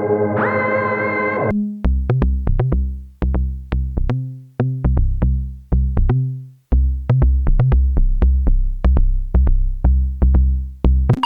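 Dreadbox Typhon analog monophonic synthesizer playing a preset. A sustained buzzy note rich in overtones stops about a second and a half in. It is followed by a rhythmic pattern of short, sharply plucked low bass notes, each decaying quickly.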